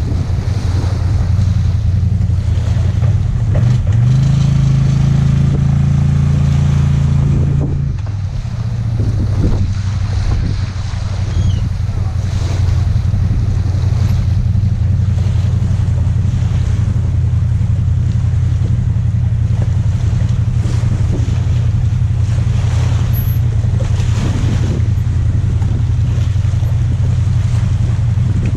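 Side-by-side UTV engine running steadily at low speed while backing a loaded jet-ski trailer. It revs up harder for a few seconds about four seconds in, then settles back. Wind buffets the microphone.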